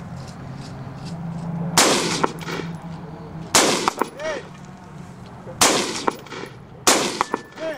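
Four rifle shots fired from the prone position, about two seconds apart. Each is followed about half a second later by a fainter clang as the bullet strikes a steel plate target downrange.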